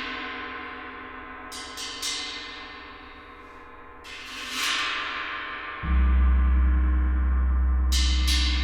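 Gongs ringing, with swells of shimmering wash that rise and fade and a few light strikes about two seconds in. Near six seconds a deep, loud, steady low hum comes in suddenly and holds under the ringing.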